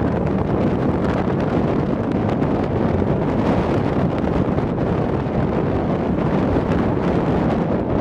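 Strong wind buffeting the camera microphone: a steady, heavy rumbling rush with no let-up.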